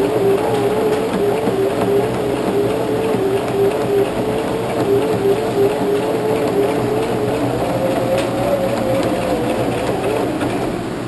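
Electric sewing machine running steadily while stitching a replacement zipper onto a heavy jacket. Its motor speeds up a little about eight seconds in and eases off near the end.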